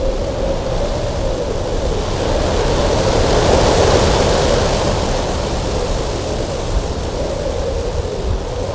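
Strong wind gusting steadily with a wavering, howling whistle, swelling to its loudest about halfway through and then easing off.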